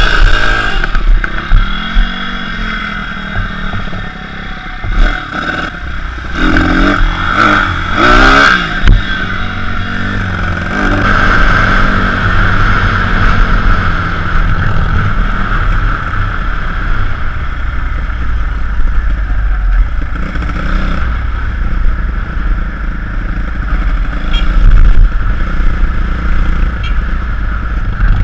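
Small pit bike engine revving up and down several times in the first nine seconds, then running steadily as the bike is ridden, under a low rumble of wind on the helmet microphone.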